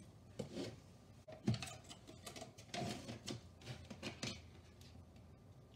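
A plastic yogurt tub being opened and a metal spoon scraping and clinking in it as yogurt is scooped out: a run of light clicks and scrapes, the strongest about a second and a half in.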